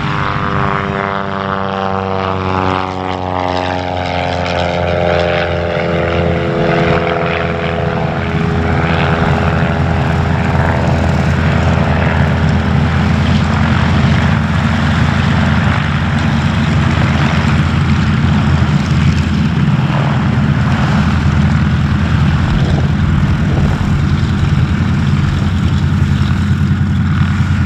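Nine-cylinder Pratt & Whitney R-1340 radial engines of several Harvard (T-6 Texan) trainers running at low power as the aircraft taxi past, with a propeller whirr over the engine note. The pitch falls over the first few seconds, then settles into a steady low drone.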